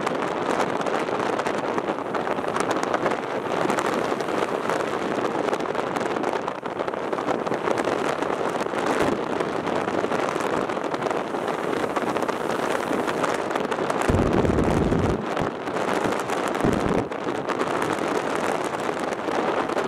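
Rough ocean surf breaking and washing over a rocky shore in strong wind, the wind buffeting the microphone throughout. Heavier gusts rumble on the microphone about 14 seconds in and again about 17 seconds in.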